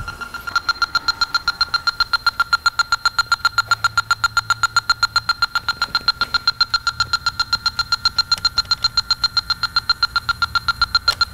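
Electronic refrigerant leak detector beeping in a rapid, even rhythm of several high beeps a second as it is swept around the AC compressor and engine underside, searching for a refrigerant leak.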